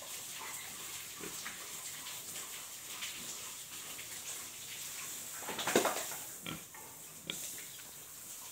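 A white domestic pig grunting, with one louder, longer grunt about six seconds in and a couple of short, quieter sounds after it.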